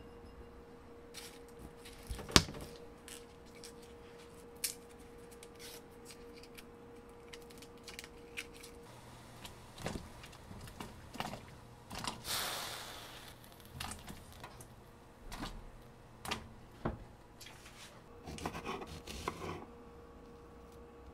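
Quiet kitchen handling sounds: scattered taps and clinks of bowls and utensils, with one sharp knock about two seconds in and a brief hiss a little past halfway. Near the end a kitchen knife taps on a wooden cutting board as it slices garlic cloves.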